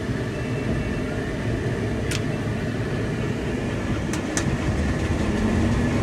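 Combine harvester running, heard from inside the cab: a steady low mechanical rumble as the machine is fired back up to resume cutting wheat, growing a little louder near the end. A few sharp clicks sound over it.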